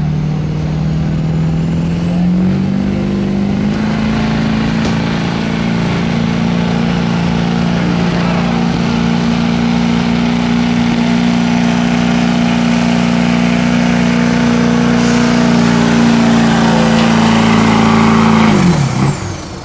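A Ford Super Duty pickup's turbo diesel runs at high revs under heavy load while dragging a pulling sled, with a high turbo whistle over the engine. The pitch climbs over the first few seconds and holds steady; near the end the engine is let off and winds down, and the whistle drops with it.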